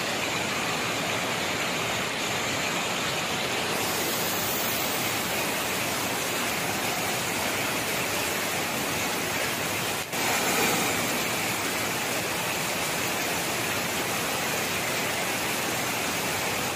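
Steady rush of water: heavy rain and pond water pouring over a plastic-lined bank, with a brief dropout about ten seconds in.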